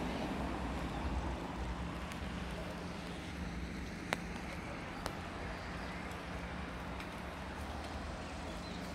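Steady outdoor background noise with a low steady hum, and two faint sharp clicks a second apart near the middle.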